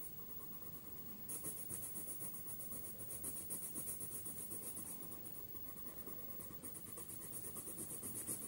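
Coloured pencil shading back and forth on paper, a fast scratchy rhythm of about four to five strokes a second. It is softer for the first second and again for a moment around five to six seconds in.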